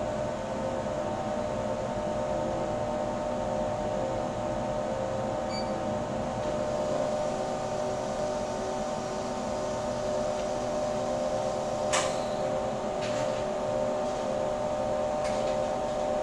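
Steady machine hum of battery-cell production equipment, made of several constant tones, with a few sharp mechanical clicks in the last third.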